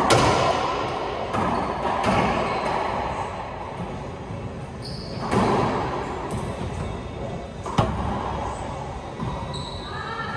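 Racquetball rally: the ball cracking off racquets and smacking off the court walls and floor, each hit echoing around the enclosed court. The loudest hits come right at the start, about two seconds in, about five seconds in and just under eight seconds in.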